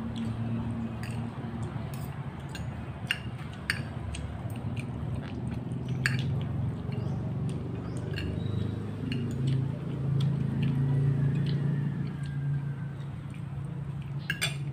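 Spoon and fork clicking and scraping against a plate now and then, with chewing, over a low steady hum.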